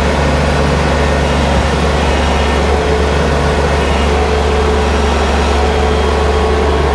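Kubota BX23S tractor's three-cylinder diesel running steadily, driving its 50-inch snowblower, which spins empty as a test of its newly replaced drive chain.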